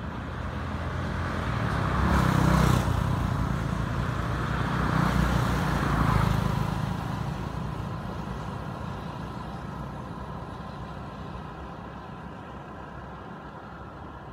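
Motor vehicles passing on a nearby road: a rumble that swells to a peak about two seconds in, swells again around five to six seconds, then slowly fades away.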